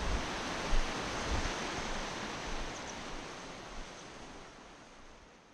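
Steady rushing of a mountain stream, fading out gradually toward the end, with a few low thumps in the first second and a half.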